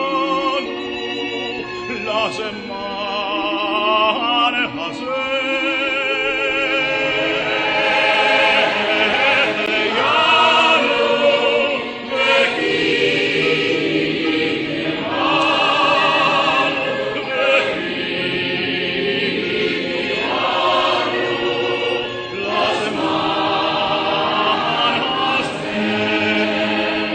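Background music of choral singing: voices holding long notes with a wide vibrato, phrase after phrase.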